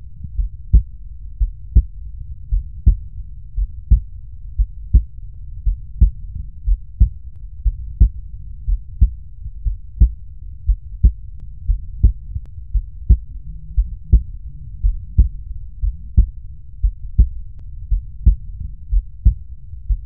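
Heart sounds through an electronic stethoscope at the pulmonary focus: a regular lub-dub about once a second over a steady low hum. A faint third heart sound follows the second sound, generally physiological in a young person.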